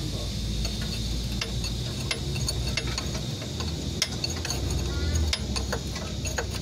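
A wrench working a bolt on the Toyota Kijang Innova's front lower control arm, making irregular metallic clicks and ticks over a steady low hum.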